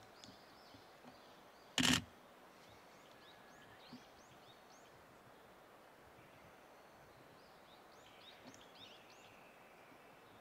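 Small birds chirping here and there with short, rising calls over a faint steady outdoor background. About two seconds in, one short, loud, sharp burst stands out above everything else.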